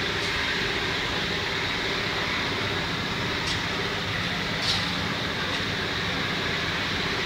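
Steady low mechanical rumble, with a few faint clicks.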